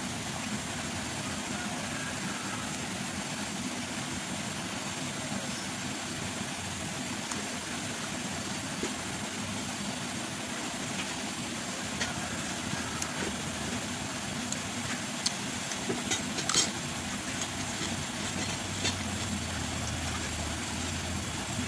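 Steady rushing background noise, with scattered clicks and crunches of someone eating raw vegetables and leaves, a few louder ones about sixteen seconds in.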